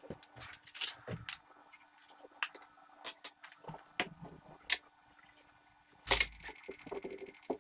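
Kitchen work sounds: scattered clinks and knocks of glass jars and utensils being handled, with a louder knock about six seconds in.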